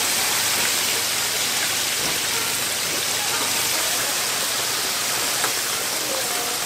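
Hot oil in a deep fryer sizzling steadily as battered pork rib pieces fry in a wire basket.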